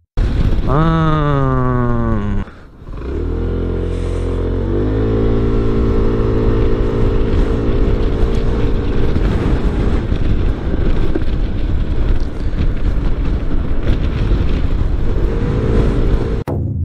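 Honda Forza 125 scooter's single-cylinder engine pulling away from a standstill under full throttle. Its pitch climbs briefly and then holds nearly level as the automatic belt transmission keeps the revs up while the scooter gathers speed, with wind noise over it. The run is preceded by a falling tone lasting about two seconds.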